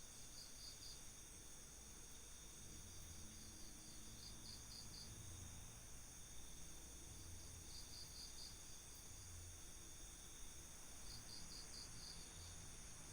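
Faint night chorus of crickets and other insects: a steady high-pitched drone, with short trills of four or five quick pulses repeating about every three to four seconds.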